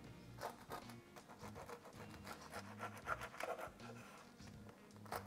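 A knife sawing through a crusty baguette on a wooden cutting board, making faint, repeated crunchy rasping strokes, with soft background music under it.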